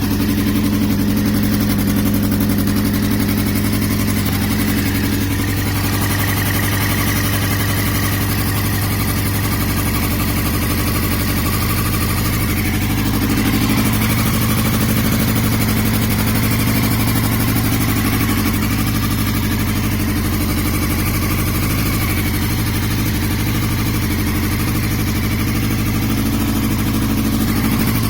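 2002 Yamaha YZF-R6's 600 cc inline-four engine idling steadily at an unchanging pitch while misfiring, from an engine or ignition fault whose cause is unknown to the owner.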